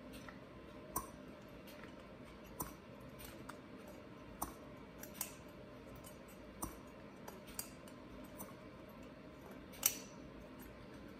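Light, irregularly spaced clicks and knocks, about eight of them, the loudest near the end, from hands turning and tipping a plastic-housed Echo chainsaw powerhead.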